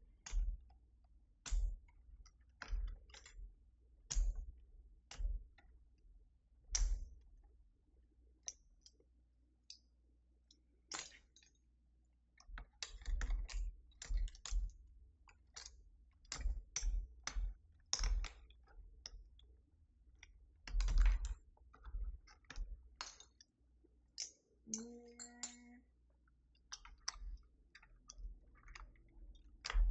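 Plastic keycaps being pulled off and pressed onto the switches of a Keychron V6 Max mechanical keyboard: irregular sharp clicks and snaps, some with a dull knock, coming in uneven clusters.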